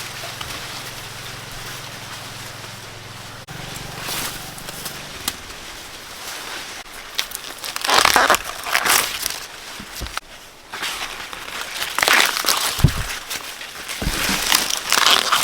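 Dry corn leaves and husks rustling and crunching in several separate bursts, as ears are handled and picked from the stalks. A low steady hum stops about five seconds in.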